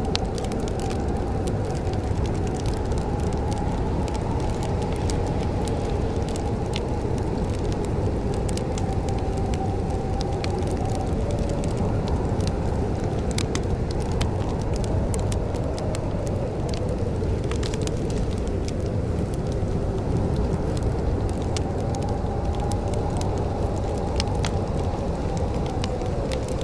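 Wood fire crackling in a fireplace, with scattered sharp pops over a steady low rumble and a slowly wavering hum.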